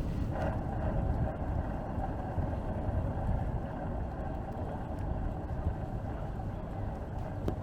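Wind rumbling steadily on the microphone while cycling, with a faint steady whine joining a moment in.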